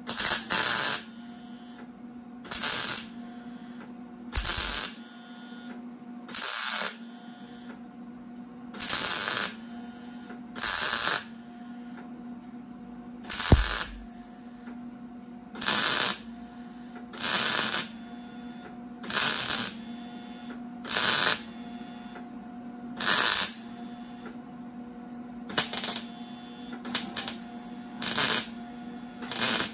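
Wire-feed welder laying a row of spot welds on sheet-metal door skin: about sixteen short bursts of arc, each half a second to a second, roughly every two seconds, a few coming closer together near the end. A steady hum runs underneath between the welds.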